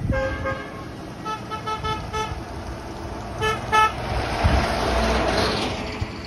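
A vehicle horn honking in a string of short toots, then two more a second later, as the parade's lead vehicles roll by; near the end a vehicle passes close with a swell of road noise.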